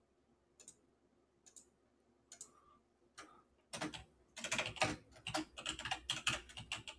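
Typing on a computer keyboard: a few separate key clicks, then a quick run of keystrokes from about halfway through.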